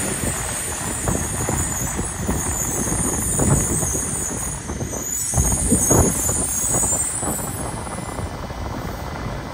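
Yokohama Municipal Subway Blue Line train pulling in and braking to a stop, a rumble with brake hiss, loudest at about 3.5 and 6 seconds. The high hiss dies away as the train comes to rest.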